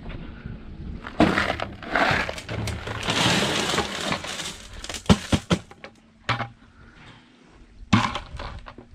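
Washed sapphire gravel poured from a plastic bucket onto a sheet-metal sorting table, rattling and sliding out for a few seconds. A few sharp separate knocks follow.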